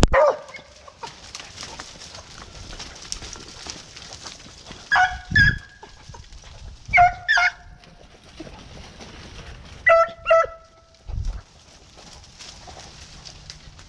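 Beagles giving tongue on a rabbit's trail: short, high yelping calls in pairs, repeating every two to three seconds. A few low thumps are mixed in.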